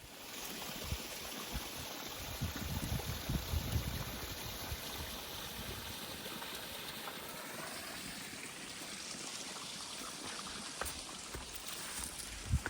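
Mountain creek running: a steady rush of flowing water, with a few low bumps about two to four seconds in.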